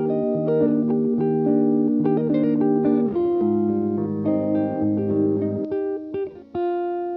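Background music led by plucked guitar: a sequence of sustained notes and chords, ending on one held chord that fades out near the end.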